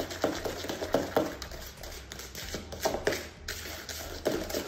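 A spoon stirring a wet mixture in a plastic mixing bowl, knocking and scraping against the bowl in quick, irregular strokes, with a short lull about two seconds in.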